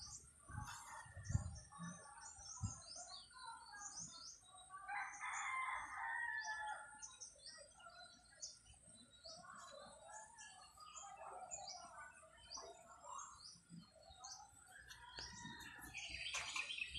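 A rooster crowing, its longest call about five seconds in, with small birds chirping in short high notes throughout. A few low thumps near the start, the loudest about a second in.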